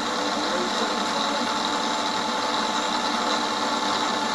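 Machine tool with a spring-returned quill running steadily, a constant motor hum with a thin high whine.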